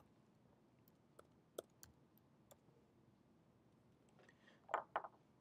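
Faint, scattered keystroke clicks on a computer keyboard as a calculation is typed into a calculator, about half a dozen in the first two and a half seconds.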